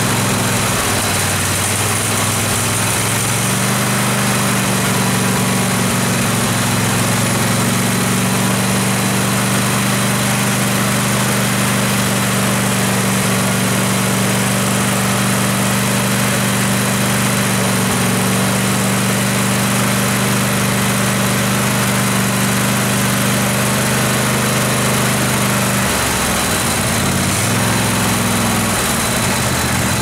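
Kohler Pro 26 hp V-twin engine of a Craftsman lawn tractor idling steadily, its note shifting briefly about a second in and again near the end. The engine is being checked for a lean-running intake manifold vacuum leak, with propane sprayed around the gaskets.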